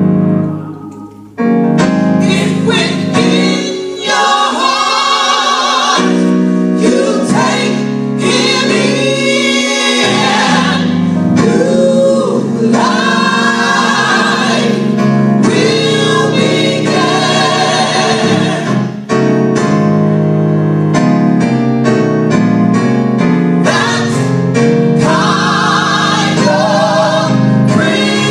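Gospel choir singing in full voice over keyboard accompaniment, with a brief drop in level about a second in before the singing resumes.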